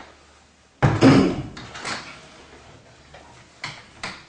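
A heavy equipment case being picked up and moved: a loud thump about a second in, then a few lighter knocks and clunks.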